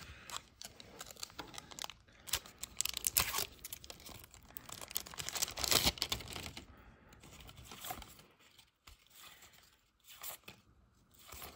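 A silver foil Upper Deck hockey card pack being torn open, with the wrapper crinkling in a run of rough rustling bursts, loudest a couple of seconds before the middle. Fainter rustles follow as the stack of cards is handled.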